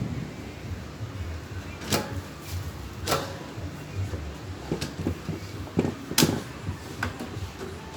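Irregular sharp clicks and knocks of plastic electric-fan parts being handled and fitted by hand, the loudest about six seconds in, over a low rumble.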